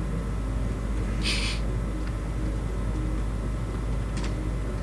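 Steady low hum of background noise, with a brief hiss about a second in and a short click near the end.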